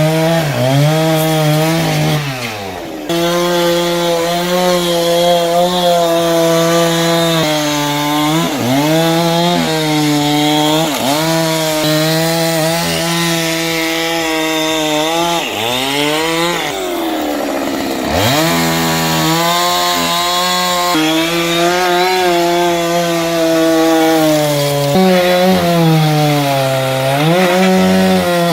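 Chainsaw at full throttle, cutting through a bundle of logs stacked across a frame. Its pitch drops again and again as the chain bogs down in the wood, then rises back, with one long, deep drop about halfway through.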